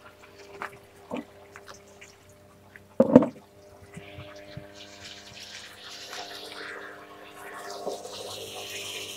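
A couple of knocks, the loudest about three seconds in, then water trickling and splashing through a vertical hydroponic tower from the reservoir barrel, growing louder near the end.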